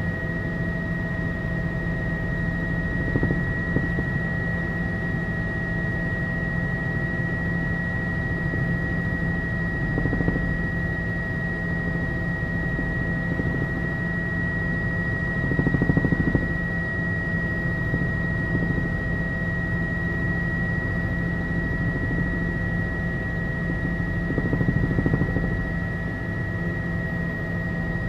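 Tour helicopter in steady forward flight, heard from inside the cabin: a constant drone of turbine and rotors with a steady high whine, swelling briefly twice.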